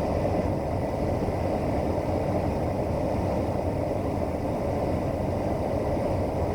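Steady drone of the Cessna 208 Caravan's PT6A turboprop engine and propeller in cruise flight, heard inside the cabin, with a faint high whine above it.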